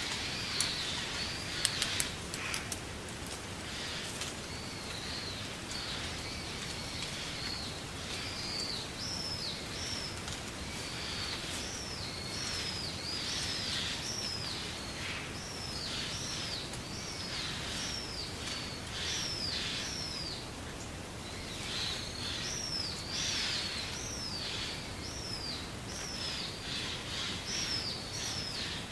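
Wind blowing through reeds, a steady hiss, with a bird calling over it in short high notes that rise and fall, roughly one a second through most of the stretch. A few sharp clicks near the start.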